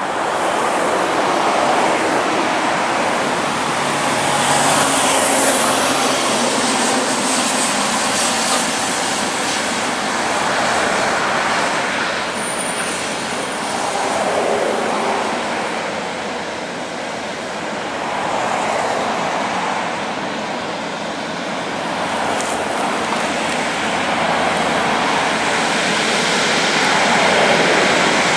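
Highway traffic passing close by, with cars, a road train and heavy trucks going by one after another. Tyre and engine noise swells and fades with each vehicle, and is loudest near the end as an oversize heavy-haulage truck climbs the grade toward the microphone.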